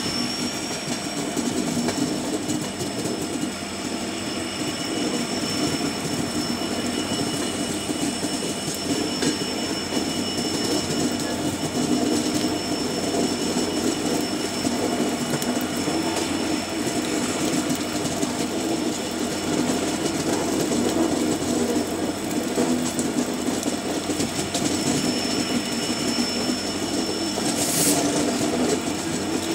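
Passenger train rounding a curve: the wheel flanges squeal in a steady high-pitched whine over the rumble and clatter of the wheels on the track, heard through an open coach door.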